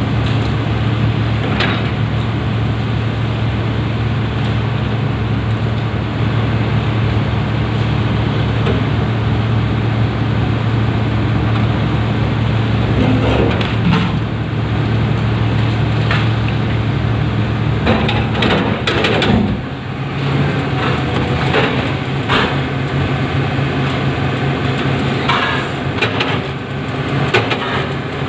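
Komatsu PC300 excavator's diesel engine running steadily under load as the bucket pushes against a cut granite block, with scattered knocks and scrapes of steel on stone. About two-thirds of the way through, the engine note dips and changes.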